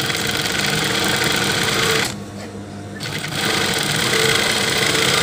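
High-speed industrial lockstitch sewing machine running steadily as it stitches a straight seam through fabric. It stops about two seconds in and starts again about a second later.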